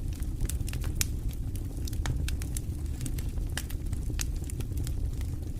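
Wood campfire crackling, with frequent sharp, irregular pops and snaps over a steady low rumble.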